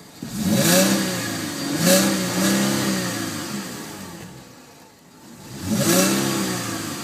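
2010 Cadillac CTS Wagon's 3.6-litre DOHC V6 revved in Park. Two quick rises in the first two seconds, then the revs sink slowly back toward idle, and a third rev comes about six seconds in and falls away.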